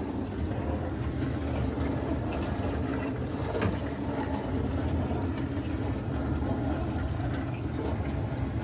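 Dishwasher running its wash cycle: the pump motor hums steadily while water sprays and sloshes inside the tub.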